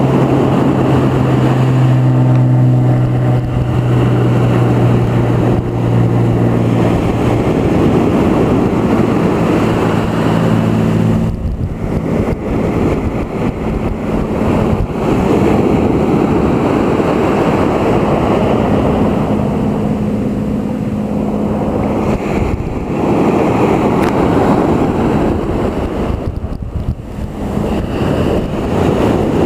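Sea waves washing onto the shore with wind buffeting the microphone, loud and continuous. A steady low engine hum runs beneath the surf through the first two-thirds.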